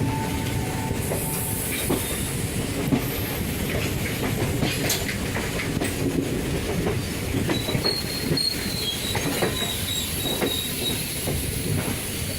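An express passenger train rolling into a station, its wheels clacking over rail joints with a steady rumble. From about two-thirds of the way in, thin high wheel squeal comes and goes.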